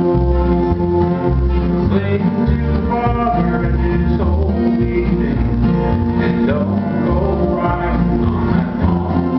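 Live acoustic country band playing: two acoustic guitars strummed and an upright bass plucked in a steady beat, with a voice singing over them.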